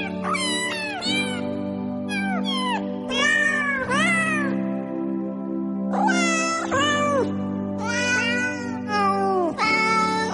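Cat meowing again and again, about one meow a second, each call bending in pitch, over background music with sustained low notes.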